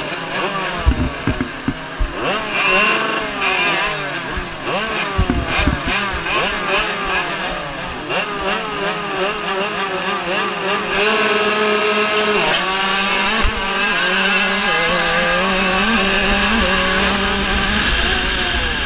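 Several motocross bikes revving at the start gate, many engines sweeping up and down in pitch over one another. About eleven seconds in the engines are held high and steady as the field launches, the nearest bike's pitch dropping as it shifts up.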